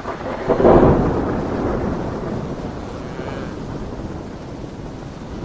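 Thunderstorm sound effect: a loud clap of thunder about half a second in, dying away slowly into steady rain.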